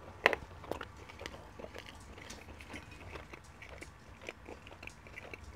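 Close-miked chewing of saucy curry chicken: soft wet mouth sounds and many small clicks, with one sharp click about a quarter second in.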